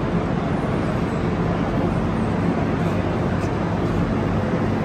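Steady noise of a crowd of travellers walking and pulling wheeled suitcases across the hard floor of a large station hall.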